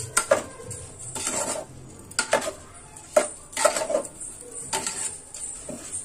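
A spoon scraping and knocking against the inside of an aluminium pressure cooker as raw rice is sautéed into the masala, in uneven strokes about once a second.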